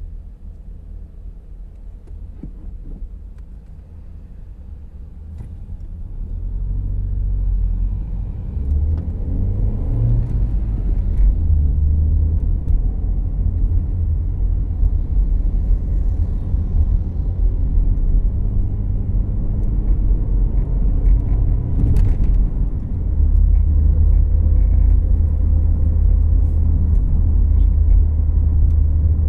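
Road and engine rumble inside the cabin of a moving 2014 Volkswagen Jetta Clásico. It grows louder over the first several seconds, then holds steady, with one sharp click about three-quarters of the way through.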